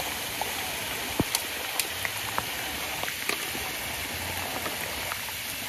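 Rain falling: a steady hiss with scattered sharp ticks through it.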